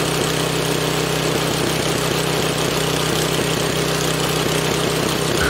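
Small four-stroke petrol engine running steadily while driving a car dynamo converted into a generator.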